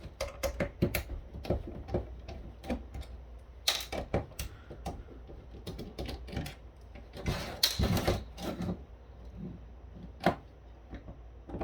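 Irregular clicks and clacks of a plastic cordless-phone base station being handled and worked apart, with a few louder clusters of clatter about four, eight and ten seconds in.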